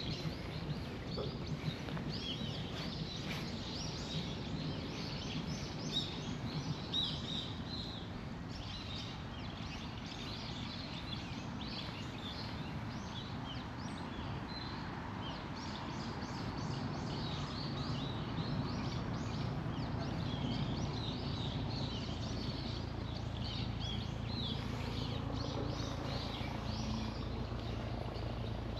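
Small birds chirping: many short, high calls repeating throughout, over a steady low rumble.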